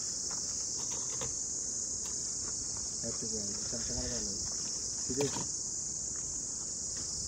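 A steady high-pitched insect chorus, typical of crickets, running without a break. Brief faint voices come in about three seconds in and again about five seconds in.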